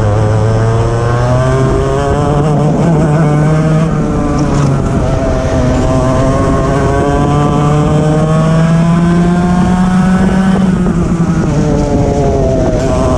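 Racing kart engine heard from onboard, revving up and dropping back as the kart laps the track: the pitch dips about four seconds in, climbs steadily for about six seconds, drops sharply about ten and a half seconds in, and starts climbing again near the end.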